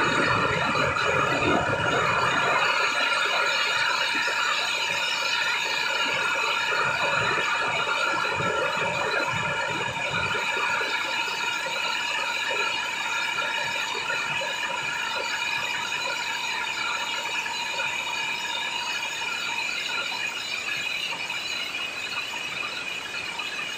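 Many strings of Chinese firecrackers going off at once in a continuous rapid crackle, with a steady high shrill tone over it. The heavier bangs thin out about ten seconds in, and the crackle slowly fades toward the end.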